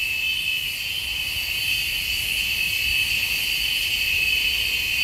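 A steady, high-pitched insect chorus, a shrill drone that holds without a break, over a faint low rumble.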